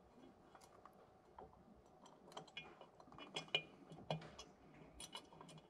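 Faint, scattered small metal clicks and taps as runner gaskets and bolts are handled and set by hand at the runner-to-plenum joint of a tuned-port intake manifold, coming more often from about two seconds in.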